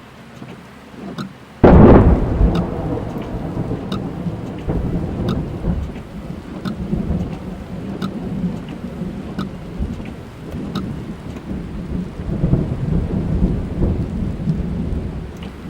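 Thunderstorm heard from inside a car: a sudden, loud thunderclap about a second and a half in, rolling on into a long rumble that swells again near the end, over steady rain drumming on the car with scattered drop ticks.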